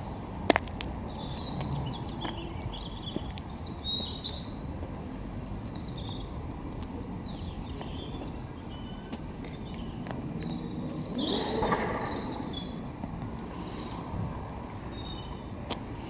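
Wild songbirds singing and chirping in short phrases over a steady low background rumble. A sharp knock about half a second in, and a louder humming sound about eleven seconds in.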